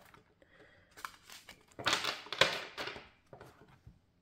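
A tarot deck being shuffled by hand: the two halves riffled and pushed together, heard as a few light clicks, then a louder card rustle near the middle and shorter taps and rustles as the deck is squared.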